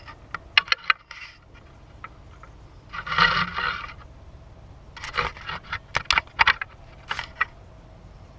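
Zero-clearance table saw insert being tried in the saw's throat-plate opening: a series of sharp clicks and knocks with a scrape about three seconds in as the insert is pushed and rocked against the opening without seating.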